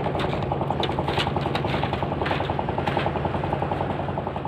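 An engine running steadily with a fast, even knocking beat. A few light clicks sound over it.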